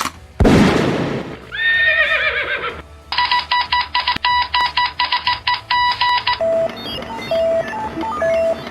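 A string of separate sound effects: first a loud sudden noisy hit that fades over about a second, then a horse whinnying, then about three seconds of fast electronic ringing like a phone or alarm clock, then slower single beeps at a lower pitch.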